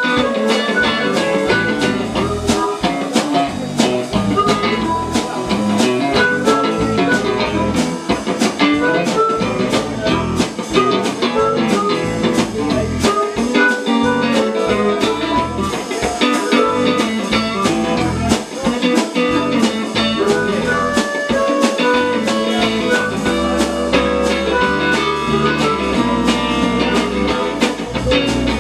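Live blues-rock band playing: guitar lines over a steady drum-kit beat, with no words picked up.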